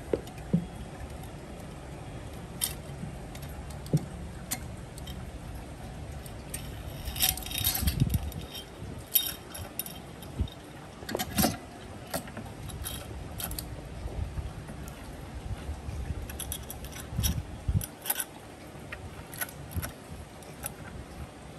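Scattered light metallic clicks and clinks of tools and small scooter engine parts being handled during top-end reassembly, in short clusters.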